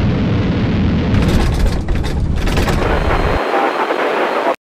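Spacecraft engine sound effect: a loud, steady rushing noise with a deep low end. The low end drops away about three and a half seconds in, and the sound cuts off abruptly near the end.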